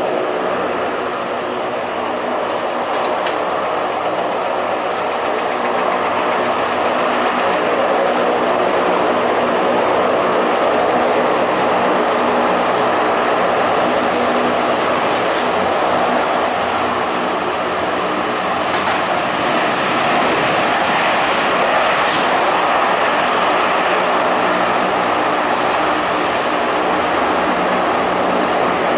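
Antonov An-12BK's four Ivchenko AI-20 turboprop engines running as the aircraft taxis: a steady, loud propeller drone with a high whine over it, growing slightly louder about six seconds in.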